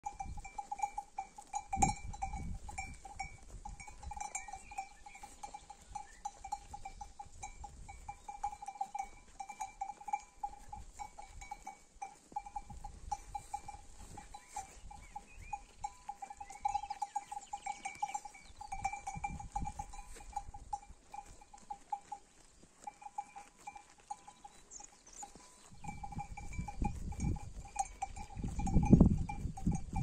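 Sheep bells tinkling and clanking without a break as the flock grazes, a steady flickering ring. A low rumble on the microphone swells over the last few seconds.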